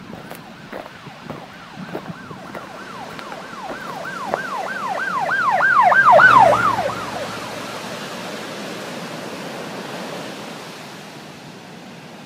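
Emergency vehicle siren on a fast yelp, about three or four sweeps a second. It grows louder to a peak about halfway through, then fades away as if passing by, over a steady rushing noise.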